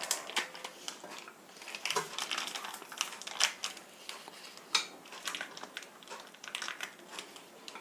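Scattered light clicks, taps and rustles of small hardened herbal sweet pieces being picked up off a plate by hand.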